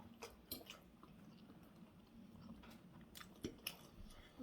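Faint chewing of fried plantain, with a few soft scattered mouth clicks.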